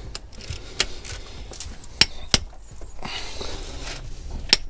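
Sharp metallic clinks of a socket and bar working on a cylinder head bolt as it is undone, with a short rasping stretch about three seconds in.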